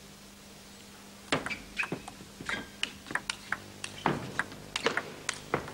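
Table tennis rally: the celluloid ball clicking off the bats and the table about twice a second, starting a little over a second in.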